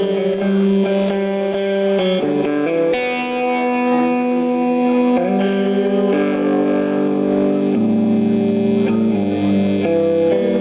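Electric guitars played live through distortion and effects, ringing out long held chords and notes that shift every second or two in a slow, droning passage by an early-1990s emo band.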